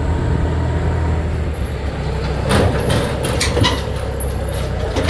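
A vehicle driving along: a steady low engine and road rumble, with a run of sharp rattles and knocks starting about halfway through.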